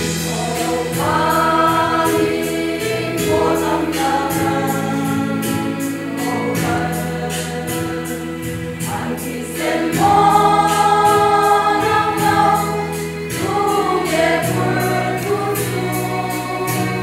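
Women's church choir singing a hymn over a steady beat, in phrases separated by short breaths.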